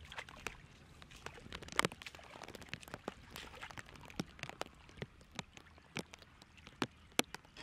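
Shallow muddy water running and splashing through a mosquito-net fish trap while the net is hauled by hand, with many sharp, irregular splashes and clicks; the loudest comes about two seconds in.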